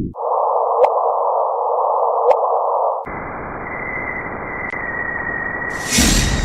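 An electronic space sound: a band of hiss with a steady tone running under it. The sound jumps abruptly to a higher band twice, first just after the start and again about halfway through. Faint clicks come in the middle, and a sharper, brighter hiss bursts in near the end.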